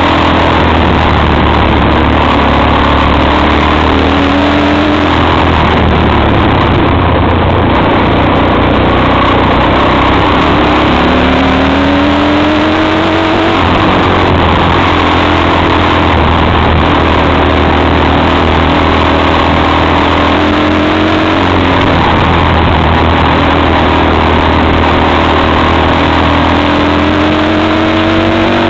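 XY250STXE quad's engine running under way on a rough dirt track, its pitch rising several times as it is opened up.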